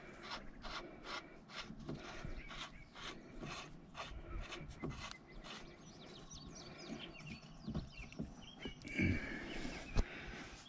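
Faint light clicks and ticks of a nut being screwed by hand onto the steering pin of a grader's hydraulic cylinder. High chirping comes in over the second half, with a short low sound about nine seconds in and a sharp click near the end.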